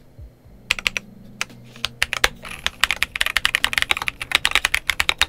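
Typing on a Monsgeek M3W gasket-mounted aluminum TKL mechanical keyboard fitted with Akko Blue switches. A few scattered keystrokes come first, then steady fast typing from about two seconds in.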